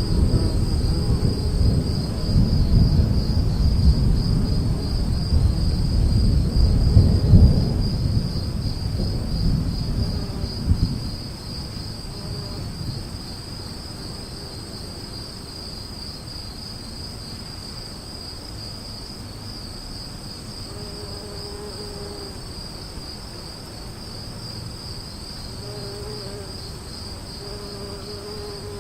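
Crickets chirping in a steady high trill, with a long roll of thunder rumbling through the first ten seconds or so and fading out about eleven seconds in. A few faint short calls sound in the second half.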